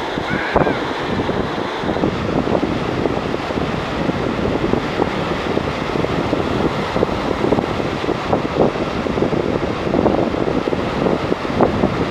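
Wind buffeting the microphone, over the steady rush of sea waves breaking on a rocky shore.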